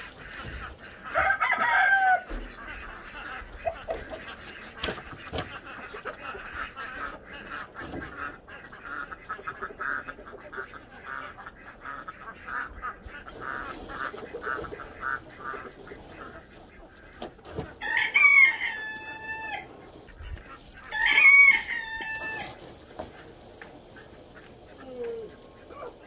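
A rooster crowing three times, about a second in and twice close together near the end, each crow long and drawn out. In between, ducks quack in a fast, steady chatter.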